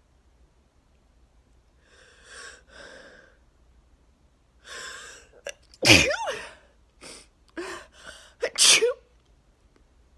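A woman sneezing in a hay-fever sneezing fit set off by freshly cut grass. Two loud sneezes come about six and nine seconds in, with sharp breaths drawn in before and between them.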